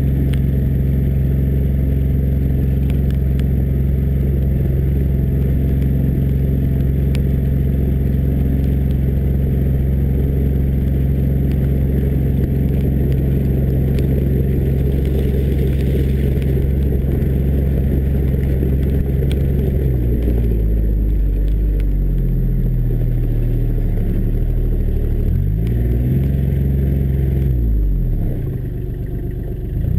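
John Deere Gator 855D's three-cylinder diesel engine running at a steady speed while the vehicle drives over a muddy dirt track, heard from beside the front-left wheel. About two-thirds of the way through the engine speed starts rising and falling repeatedly, dipping lowest just before the end.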